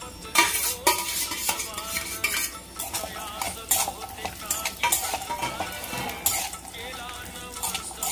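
A steel spoon stirs sliced cashews and almonds in a metal kadhai, with repeated irregular scraping and clinking strokes against the pan. The nuts are being roasted in ghee.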